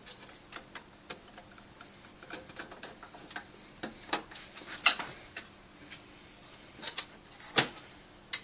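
Irregular clicks and taps of metal desktop-PC case parts and a screwdriver as the hard-drive mount is fitted and screwed back in, with a few louder knocks about five seconds in and near the end.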